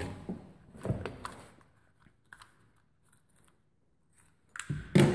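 Vinyl electrical tape being worked by hand: a short rasp about a second in, a few light clicks, then a louder sharp rip near the end as tape is pulled off the roll or cut.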